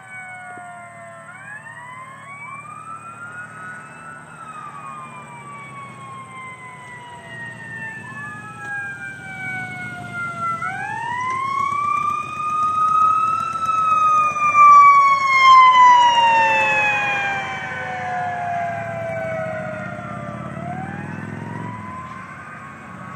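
Ambulance and police escort sirens wailing together, their slow rising-and-falling sweeps overlapping out of step. They grow louder to a peak a little past the middle as the vehicles pass, then fade, with engine and road noise underneath.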